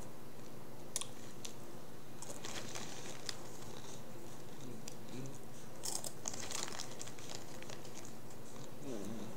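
Sporadic crinkles and crunches, clustered about six seconds in: a bag of Takis rolled tortilla chips being handled and the chips being chewed, over a steady low hum.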